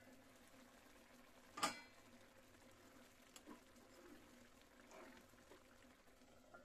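Curry simmering faintly in a covered kadai, a soft bubbling close to silence, with one sharp clink a little under two seconds in.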